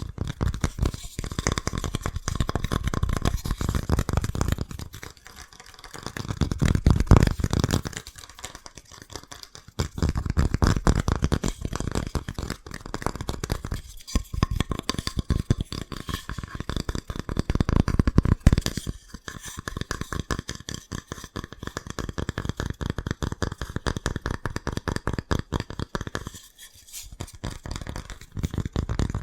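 Fast, aggressive fingertip tapping on hard objects: a dense run of rapid taps, broken by several brief pauses.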